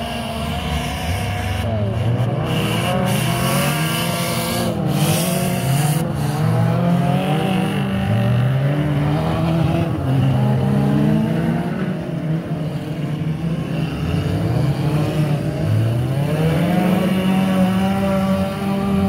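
Engines of several battered old cars in a wreck race, revving hard on a dirt track. Their pitches keep rising and falling and overlapping as the cars accelerate, lift off and pass.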